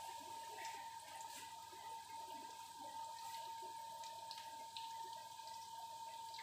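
Breaded chicken goujons frying in a pan over a gas burner: a faint, steady sizzle with scattered small crackles. A thin, steady whine runs underneath.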